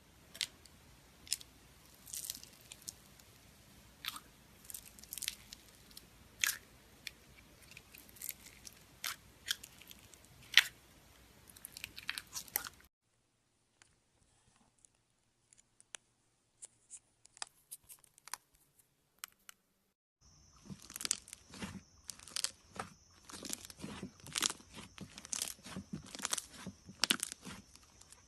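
Slime being pressed and stretched by hand: an irregular run of sharp clicks and crackles. It thins to a few faint clicks for several seconds midway, then comes back denser, with a steady high whine under it near the end.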